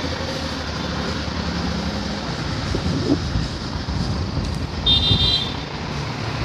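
Steady road-traffic noise with a short, high-pitched beep about five seconds in.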